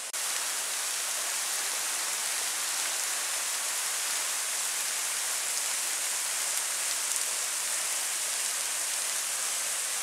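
Low-flow waterfall: thin streams of water falling and splashing down a porous tufa limestone cliff, making a steady rain-like hiss.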